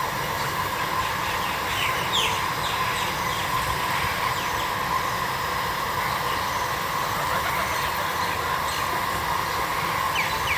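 Steady outdoor background noise with a constant hum-like tone, overlaid by many short, high, falling chirps of small birds calling.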